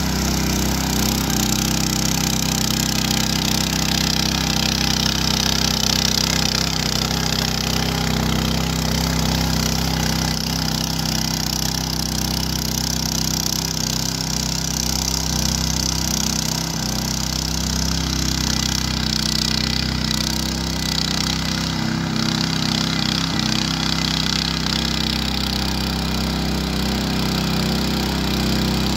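Ruris 751KS motor tiller with eight tilling blades running steadily under load as the blades churn through garden soil.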